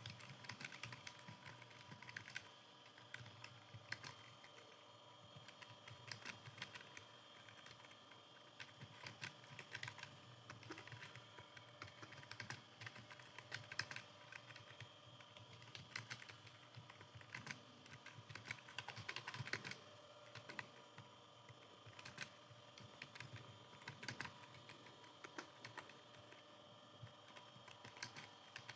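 Steady, fast typing on a computer keyboard: a continuous, irregular run of light key clicks, several a second, with some louder strokes.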